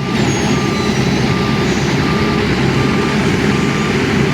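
Heavy road-paving machinery's diesel engine running steadily while a reversing alarm beeps, short evenly spaced beeps about every three-quarters of a second.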